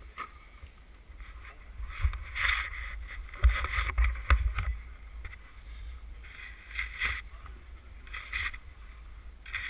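Snow crunching and packing under boots and gloved hands in irregular bursts, with a few dull knocks and a steady low wind rumble on the helmet camera's microphone.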